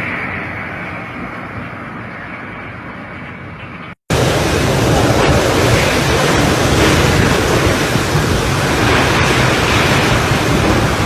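Strong wind blowing hard against the microphone, a dense rushing noise. About four seconds in the sound cuts out for a moment, then returns louder and stays loud.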